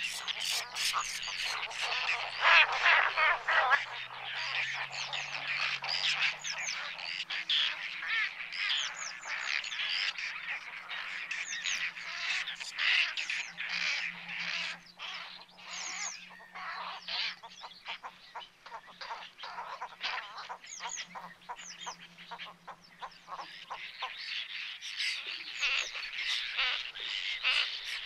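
A large mixed flock of wetland birds calling, many short harsh calls overlapping into a dense chorus. The chorus is fullest about two seconds in, thins out to more separate calls in the middle, and swells again near the end.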